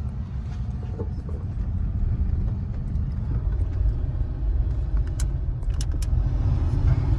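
Car cabin on the move: a steady low road and engine rumble that grows louder, with a few sharp clicks about five to six seconds in.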